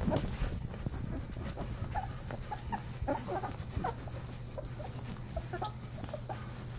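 Two-week-old Newfoundland puppies nursing, giving many short little squeaks and grunts scattered throughout, with a low steady hum underneath.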